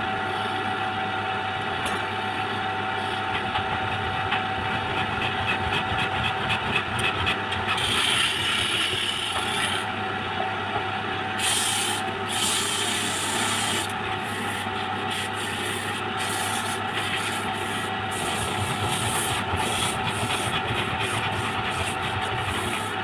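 Electric wood lathe running, with a tool rubbing and rasping against the turning wood; the rasping gets louder and harsher for a few seconds near the middle.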